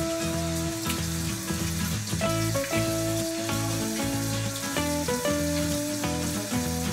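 Bathroom sink tap running, a steady hiss of water, under background music with held notes and a moving bass line.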